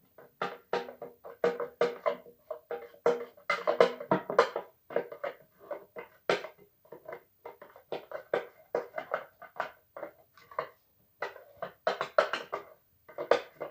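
Music with quick, choppy notes, several a second.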